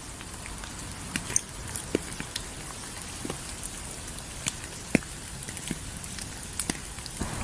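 Rain falling, a steady hiss with individual drops striking a surface as scattered sharp ticks at irregular intervals.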